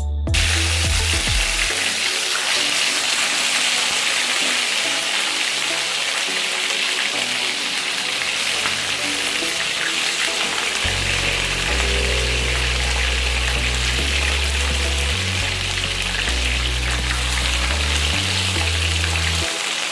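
Seasoned chicken pieces frying in hot oil in a saucepan: a steady, dense sizzle. Background music with a low bass line comes in about halfway.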